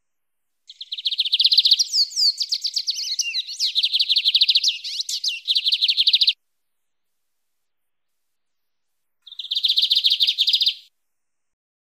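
Lined seedeater (bigodinho) singing its wild-type "mateiro" song: a long run of fast, buzzy trills broken by a few slurred notes, then after a pause of about three seconds one shorter trill.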